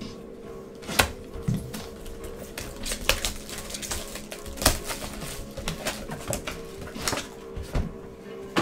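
Shrink-wrapped cardboard trading-card boxes being picked up, slid and set down on a table as they are mixed: a string of irregular knocks and taps, the sharpest about a second in and just before the fifth second.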